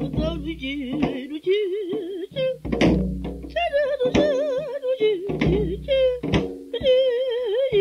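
Korean traditional singing: a voice holding long notes with a wide, wavering vibrato, punctuated by sharp drum strokes.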